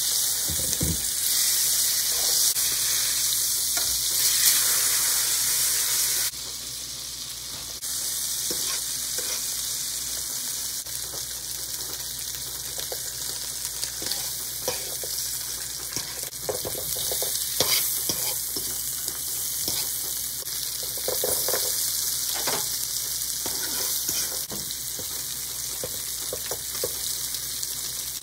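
A skin-on fish fillet and chopped vegetables frying in oil in a nonstick frying pan: a steady sizzle with scattered short clicks, briefly quieter about six seconds in.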